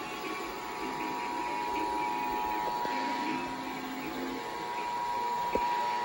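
Emergency Alert System attention signal, the steady two-tone alarm that opens an EAS message, sounding from a television set's speaker and announcing a required monthly test.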